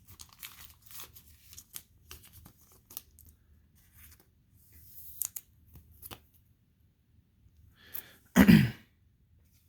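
Crinkly rustling and clicking of a soft plastic card sleeve as a trading card is handled and slid into it. This is followed about eight and a half seconds in by one brief, louder vocal noise.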